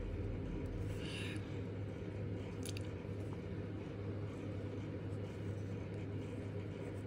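Steady low background hum, with a brief soft rustle about a second in and a single sharp click just under three seconds in.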